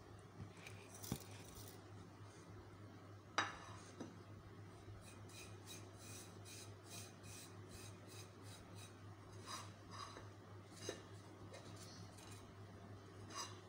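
Faint clinks and scrapes of a metal slotted spoon against a metal cooking pot, with a sharper clink about three and a half seconds in and a run of light ticks in the middle, over a low steady hum.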